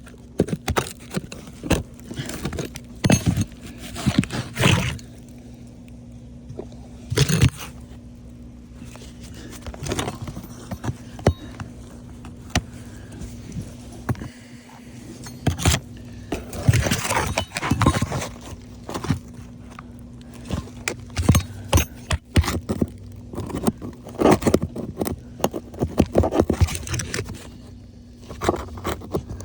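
Irregular scraping, clicking and knocking of a hand tool working under brittle roof shingles to free the nails. The strokes thin out for several seconds, then come thick and fast again for about ten seconds before tailing off near the end.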